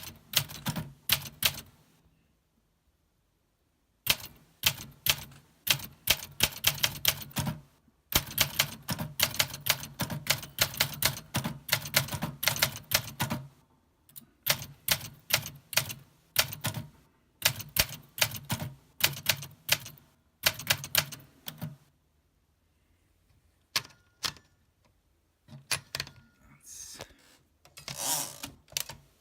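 1964 Olympia SM9 manual typewriter being typed on one-handed: runs of sharp key strikes broken by short pauses, with a longer stop about two seconds in. Near the end the strikes thin out into a few softer, smeared sounds.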